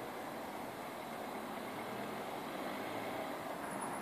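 Faint, steady distant rumble of vehicle noise with a soft hiss.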